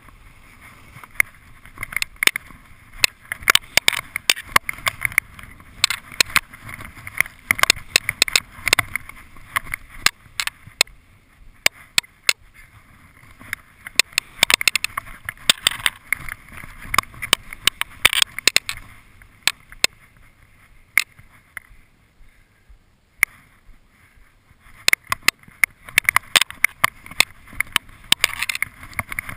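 Skis running through fresh powder snow, a steady hiss and scrape dotted with many quick irregular clicks and knocks, heard from a helmet- or body-mounted GoPro camera. The sound dies down for a few seconds a little past the middle, then picks up again near the end.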